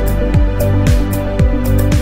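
Background music with a steady beat: an electronic track with a deep kick drum about twice a second, crisp high percussion hits and sustained chords.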